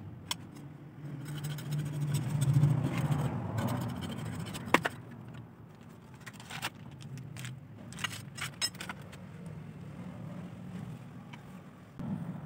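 Metal hand tools clinking and scraping at a tractor engine's rear crankshaft housing: about half a dozen sharp metallic clinks spread through, over a low hum that swells during the first few seconds.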